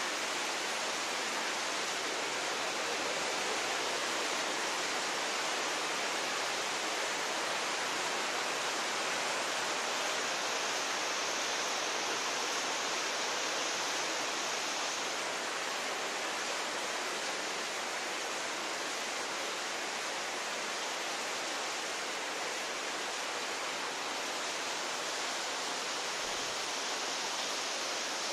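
A steady, even hiss with no breaks, knocks or changes.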